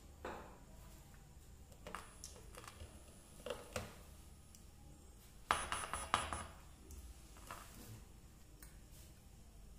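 A few faint, scattered clicks and small knocks from handling the amplifier board's wires and connectors, with a short cluster of louder clicks and rattles about five and a half seconds in.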